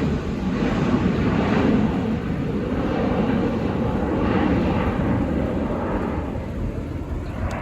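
McDonnell Douglas MD-80 ('Mad Dog') airliner flying by, its Pratt & Whitney JT8D turbofans making a loud, steady jet rumble that eases slightly toward the end.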